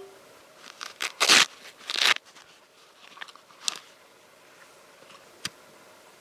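Crunching bites into tortilla-chip nachos: a few loud crunches in the first couple of seconds, then a few fainter crunches and clicks.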